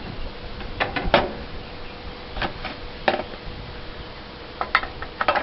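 Handling noise: scattered light clicks and knocks, three about a second in, a few more a little later and a quick cluster near the end.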